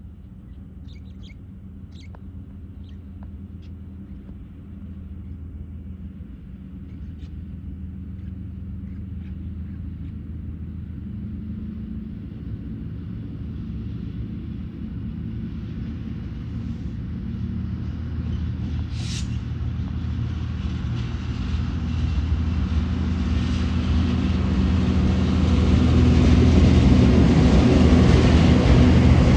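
Two TasRail TR class diesel-electric locomotives hauling a freight train, their engines rumbling steadily and growing louder as the train approaches, with wheel and rail noise building in the last few seconds.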